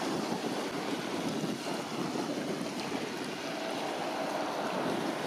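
Steady, even rushing roar of the approaching Boeing 777-300ER's GE90-115B turbofans, heard from a few kilometres off on final approach, mixed with wind on the microphone.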